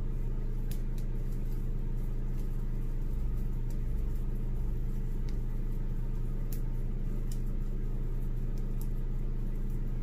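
A steady low hum made of several evenly spaced tones, from a running fan or electrical appliance. Over it are faint, scattered soft crackles of fingers twisting a section of coarse natural hair.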